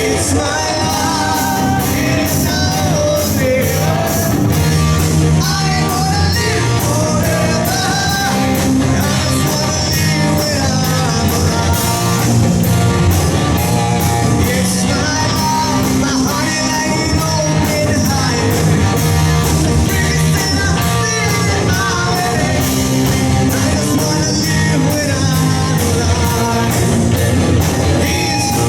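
Live rock band playing: distorted electric guitar, bass guitar and a drum kit keeping a steady beat, with a male lead singer over them, heard in a large hall.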